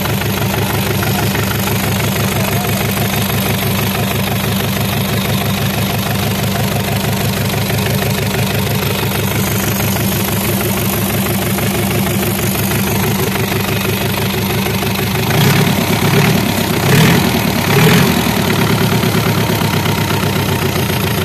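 Freshly rebuilt engine of a Bolgar TK-80 tractor idling steadily, with three brief rises in engine speed about three-quarters of the way through. The owner says it runs well.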